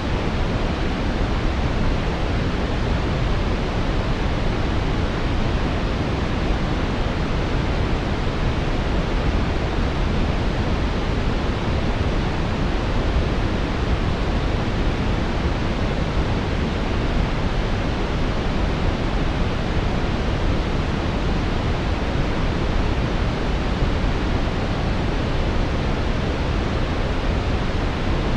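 Steady brown noise, a deep, even rumbling hiss with most of its weight in the low end and little treble, unchanging throughout.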